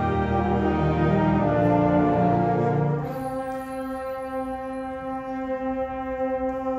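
School concert band playing a slow, sustained passage led by brass: a full held chord for about three seconds, then the sound thins and drops to a quieter chord held steadily.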